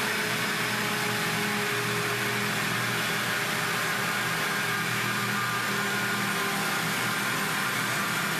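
Philco countertop blender running steadily at one speed, mixing chocolate cake batter.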